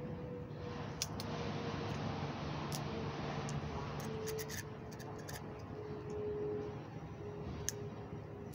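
Scattered light clicks and ticks of a spinning fishing reel being handled and cranked, over steady outdoor background noise with a faint hum.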